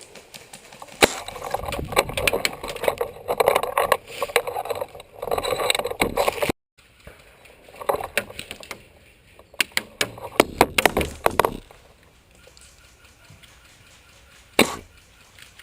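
Rustling and crackling handling noise with many small clicks, in two long bursts, broken off abruptly about halfway through. Near the end comes a single sharp snap.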